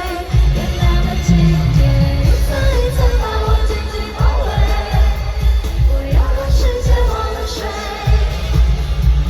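Live concert audio of Mandopop: a woman singing over a heavy, steady electronic beat.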